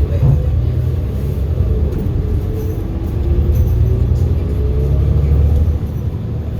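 Wind buffeting the microphone in a loud low rumble, over road traffic with an engine whose tone rises slowly through the middle.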